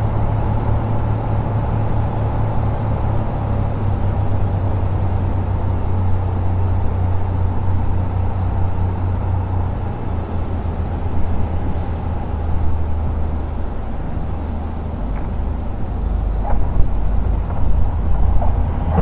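Cabin noise of a 1957 Cessna 180's 230-horsepower O-470 engine and propeller on final approach: a steady drone whose low note drops in pitch about halfway through.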